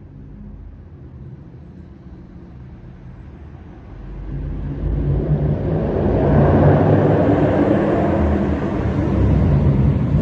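Audi S7's V8 running through a muffler-deleted exhaust: a low rumble at first, then growing much louder from about four seconds in as the car is driven harder or comes closer.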